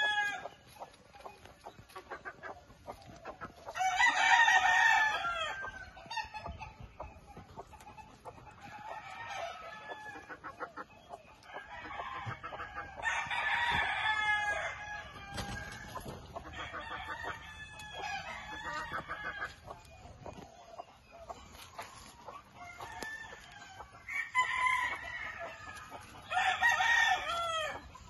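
Young gamefowl chickens (a Penny Hatch cross) clucking and calling, with loud drawn-out crows breaking in about four times: near the start, midway, and twice near the end.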